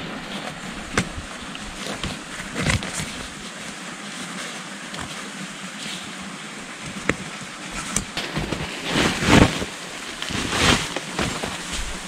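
Steady rushing of a mountain stream, with a few sharp knocks scattered through it and louder bursts of noise in the second half.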